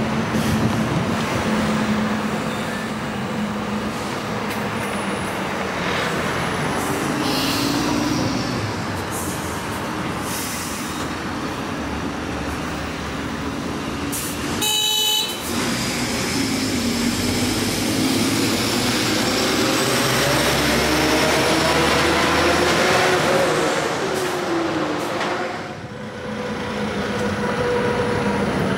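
City traffic heard while driving: steady tyre and road noise with the engines of passing cars and trucks, swelling and gliding in pitch in the second half. A short car horn toot about halfway through.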